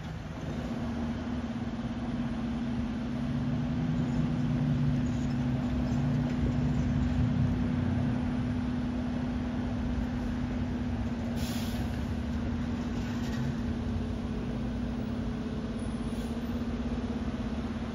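Fire engine's diesel engine running in the station bay with a steady low hum, its rumble swelling for a few seconds partway through. A short burst of air hiss comes about eleven and a half seconds in.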